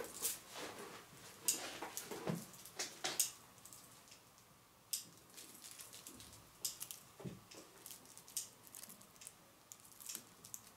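Faint fabric rustling and scattered soft clicks, irregular and spaced out, as a kitten shifts, rolls and stretches on a cloth-covered cushion.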